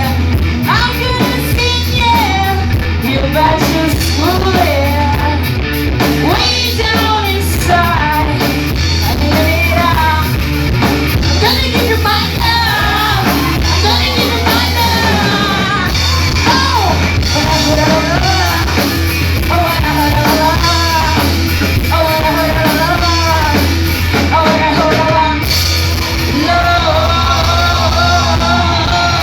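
Loud live rock music: a full band playing, with a lead voice singing and yelling over it.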